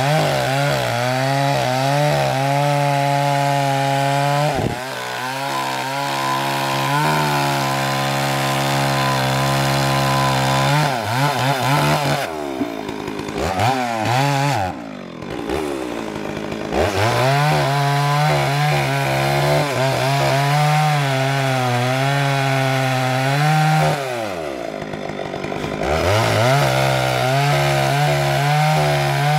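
Small two-stroke chainsaw cutting through oak logs at high revs. The engine slows and picks back up several times, with the longest slowdowns about twelve seconds in and again near twenty-five seconds.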